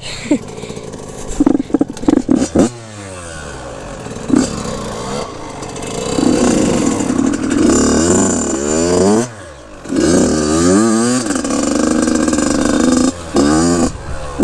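Dirt bike engine revving, its pitch climbing and dropping again and again as the throttle is worked, with a few short, choppy blips about two seconds in and brief drops off the throttle near the middle and near the end.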